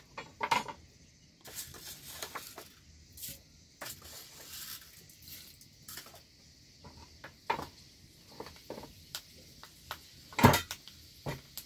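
Kitchen handling sounds: scattered light clicks and knocks of pots and utensils, with a louder knock about ten seconds in.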